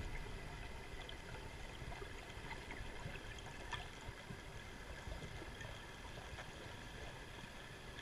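Underwater ambience picked up by a camera in its housing: a steady watery hiss with scattered faint clicks and crackles.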